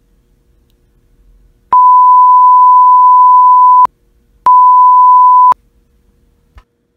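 Two loud censor bleeps, a single pure steady tone: the first lasts about two seconds, the second about one second after a short gap. They blank out swearing in the edit.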